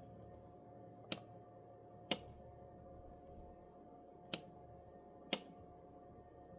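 Four sharp single clicks, about a second or two apart, from a Bobcat keyless start panel being worked, over a faint steady hum.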